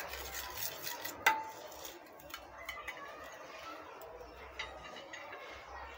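A metal spoon tapping and scraping on a glass tabletop, with one sharp, ringing clink about a second in and a few fainter taps after.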